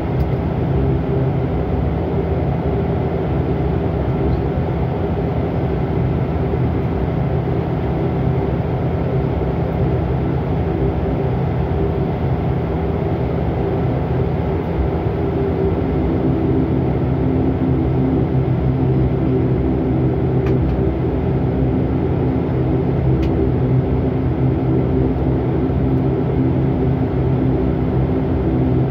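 Dash 8-400's Pratt & Whitney PW150A turboprop and propeller running at low power while the aircraft taxis, heard from inside the cabin: a steady drone with a constant hum of propeller tones.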